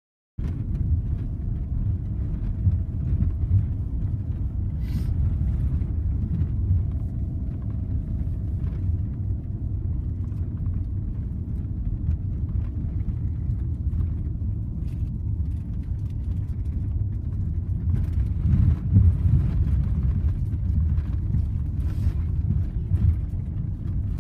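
Tour coach on the move, heard from inside the cabin: a steady low engine and road rumble, with scattered light knocks and rattles. It starts abruptly about half a second in.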